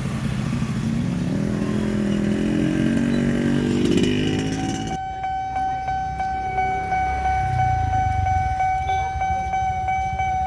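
A vehicle engine rising in pitch as it accelerates past. About halfway through, the level crossing's electronic alarm (Nippon Signal) starts abruptly: a steady high tone pulsing quickly, about three beats a second, at the crossing's faster alarm tempo.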